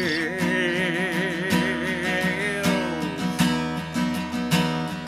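A singer holds a long note with wide vibrato over strummed acoustic guitar. About halfway through, the held note glides down and settles, while the guitar strumming goes on.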